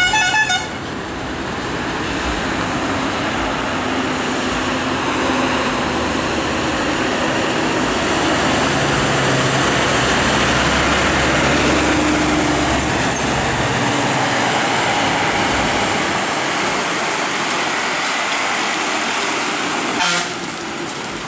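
Heavily loaded lorries' diesel engines labouring slowly around a hairpin bend, a steady drone that swells as one truck passes close in the middle. A horn sounds briefly at the very start and again near the end.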